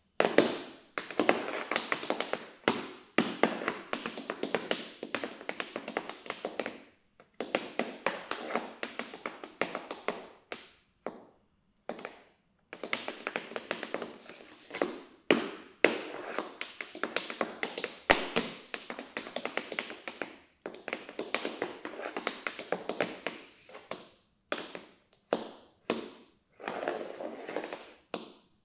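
Tap shoes striking a floor in an unaccompanied improvised tap dance: quick runs of sharp metal taps in clusters, broken now and then by brief pauses.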